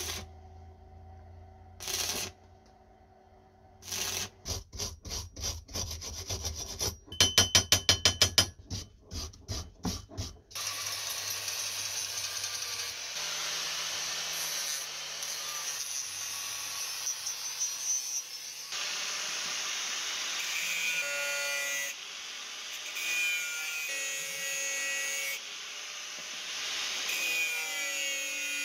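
Arc welding on steel in short crackling bursts over a low electrical hum, with a quick run of loud sharp knocks about seven seconds in. From about ten seconds in, an angle grinder grinds steel bar steadily, its whine rising and falling in pitch as the disc bites.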